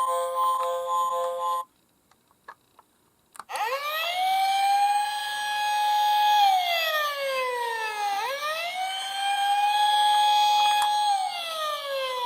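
Toy emergency vehicle's electronic siren wailing in slow cycles, rising, holding, then falling. It starts abruptly about three and a half seconds in, after a short pause with a few faint clicks. Steady electronic tones sound at the very start and cut off.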